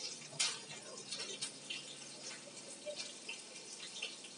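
Chopped green chili sizzling in hot tempering oil with cumin, with scattered sharp crackles and pops; the loudest pop comes about half a second in.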